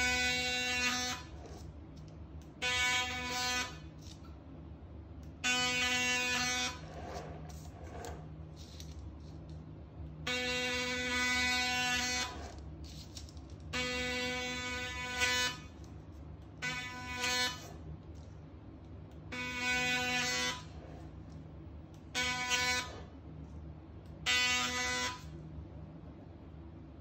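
Sonic Lame's vibrating scoring blade buzzing at a steady pitch in about nine short runs of one to two seconds each, switched on for each cut into a sourdough loaf.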